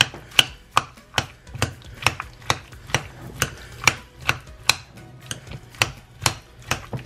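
Metal fork knocking against a glass mixing bowl while stirring and mashing boiled potatoes with sour cream, a sharp clink about twice a second.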